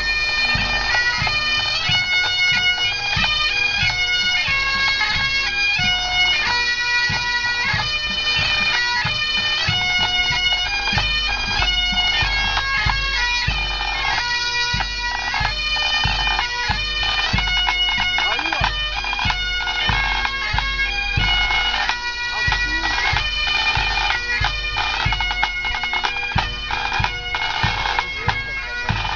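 A Scottish pipe band's bagpipes playing a marching tune, the melody stepping from note to note over steady droning tones.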